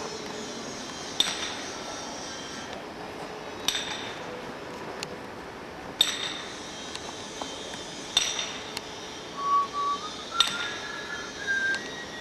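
Five sharp, glassy clinks, each ringing briefly, spaced about every two and a half seconds over a steady hiss. Near the end a few short whistled notes step upward in pitch.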